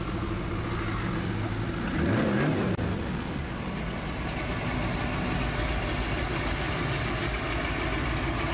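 Muscle car engine rumbling low and steady as cars roll slowly past, with a short rev that rises and falls about two seconds in.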